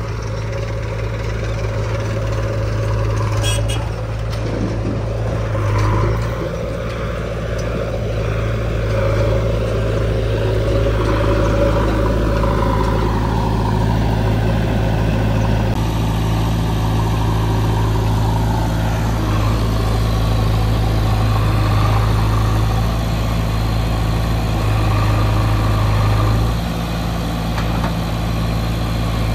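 Diesel engines of a JCB 3DX backhoe loader and farm tractors running steadily close by, a low, even engine hum with small changes in load.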